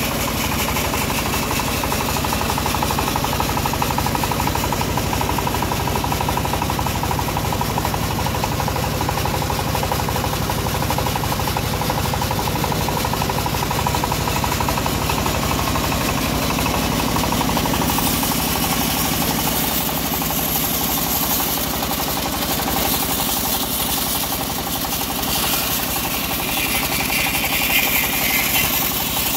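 Stationary single-cylinder diesel engine running steadily and driving a band-saw mill. About two-thirds of the way in, a high hiss joins it as the band blade begins cutting into an acacia log, and the hiss grows brighter near the end.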